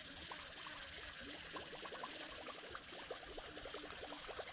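Faint ambience: a steady high hiss with many small, irregular ticks and plinks, several a second, and a few brief low notes.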